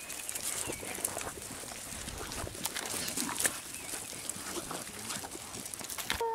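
Footsteps and rustling through grass and dry leaf litter as a handler and a pack of hounds move about, with scattered small clicks. At the very end a hound's long, steady howl begins.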